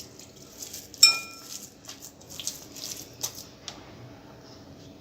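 A spoon strikes the mixing bowl once about a second in, giving a short ringing clink. Softer taps and scrapes follow as the thick masala batter is stirred.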